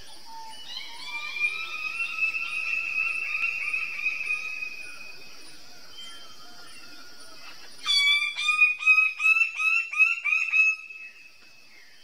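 Male greater bird-of-paradise calling as it displays: a rapid run of notes for a few seconds, then after a pause a louder series of about ten quick, falling notes. A steady high drone of insects runs underneath.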